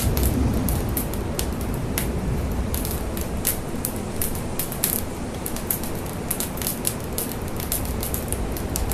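Large structure fire crackling, with many irregular sharp pops and cracks over a steady low rumble of the flames.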